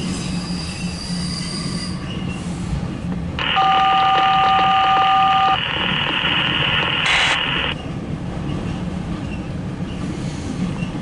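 Loaded autorack freight train rolling past with a steady low rumble. About three and a half seconds in, a two-note electronic beep over a hiss sounds for about two seconds, and the hiss runs on to about seven and a half seconds.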